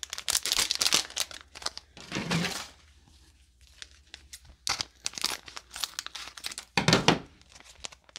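Foil packet of slime powder crinkling in the hands as it is cut open, in bursts of crackly crinkles with a short lull partway through.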